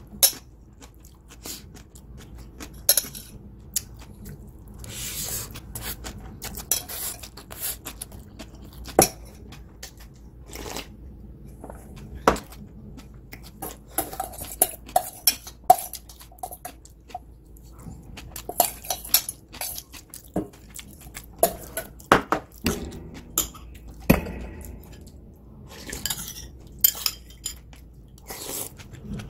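Metal spoon clinking and scraping against a stainless steel mixing bowl as food is scooped out of the nearly empty bowl, in many irregular sharp clinks with short scrapes between them.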